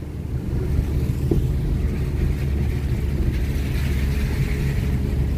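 Car driving up a steep mountain road, its engine and road noise a steady low rumble heard from inside the car.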